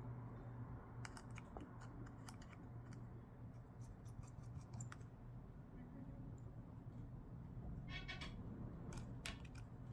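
Faint small clicks and ticks of a precision screwdriver backing out the tiny screws of an iPhone 12's internal metal shield, over a steady low hum.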